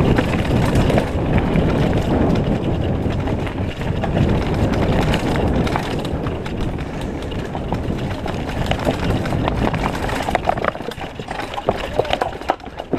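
Mountain bike descending a rough trail at speed: a steady rumble of tyres and wind on the microphone, with the bike rattling and knocking over rocks. The knocks come thicker and sharper near the end as it crosses stone slabs.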